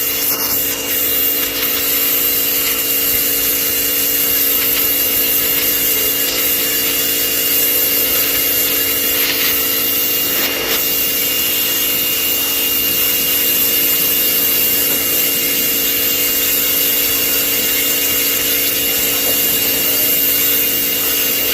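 Pressure washer running steadily, its motor holding a constant whine under the hiss of the jet spraying the trays clean.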